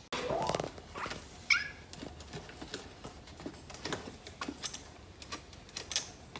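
Two kittens play-wrestling on a tile floor: irregular scuffling and light clicks of paws and claws, with a short high squeak about a second and a half in.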